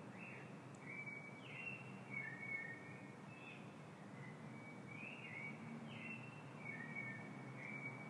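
Faint steady hiss with small birds chirping over it: short, high whistled notes, some sliding, repeating every second or so.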